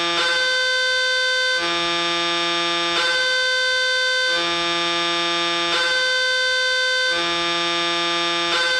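Indonesian railway level-crossing alarm sounding a repeating electronic two-tone signal, switching between a lower and a higher tone about every one and a half seconds.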